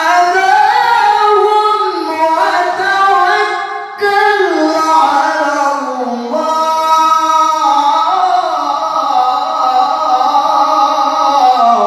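A male qari's solo Qur'an recitation (tilawah) through a handheld microphone, in the melodic, ornamented style, with long held high notes that bend and slide in pitch. There is a short break for breath about four seconds in.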